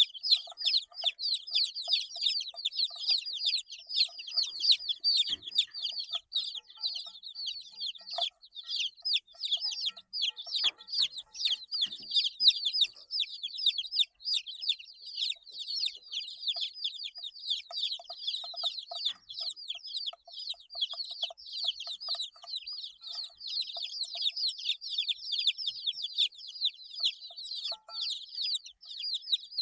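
A group of 8-day-old chicks peeping continuously, many rapid high-pitched chirps overlapping, with a few faint knocks in between.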